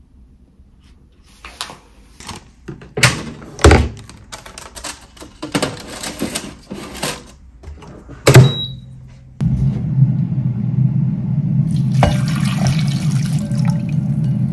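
Knocks and clatters as a tray of croissants is handled and loaded into a countertop air fryer oven. The door shuts with a loud thunk about eight seconds in, and a short beep follows. Then a loud, steady low hum with a rushing hiss sets in.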